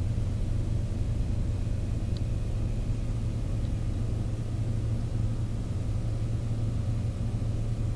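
A steady low hum with a few faint higher tones, unchanging throughout.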